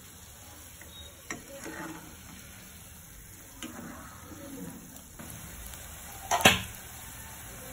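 Batter fritters deep-frying in hot oil on a high flame, with a steady sizzle, while a perforated steel skimmer stirs them, making light scrapes and clicks against the pan. One sharp metal knock, near the end, is the loudest sound.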